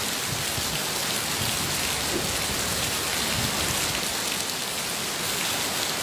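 Steady rushing water noise of a muddy flash-flood surge pouring over a concrete check dam and down a rocky channel in the rain.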